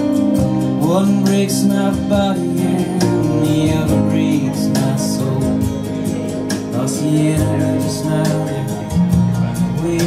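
Recorded music playing through Dali Callisto wireless active hi-fi speakers at demonstration level: a song with guitar and singing over a steady beat, with some sliding notes about a second in.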